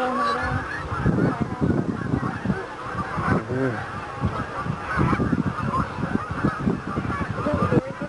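A large flock of Canada geese honking, many calls overlapping without a break.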